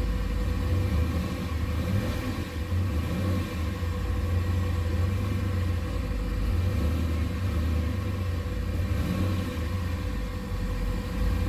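Turbocharged 6.0 LS V8 idling steadily at about 850 rpm in neutral, heard from inside the car with a steady low rumble. It is idling as it should, the throttle blade cracked open slightly by the throttle-body set-screw.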